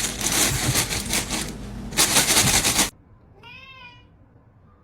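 A loud, rapid rattling clatter lasting about three seconds that cuts off suddenly, followed about half a second later by a single short cat meow.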